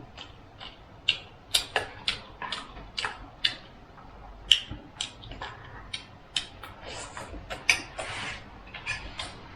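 Irregular sharp clicks, taps and short rustles, the sounds of objects being handled.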